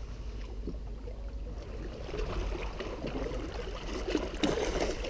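Lake water lapping and splashing against shoreline rocks as a hooked fish is drawn in at the surface, with a louder splash near the end.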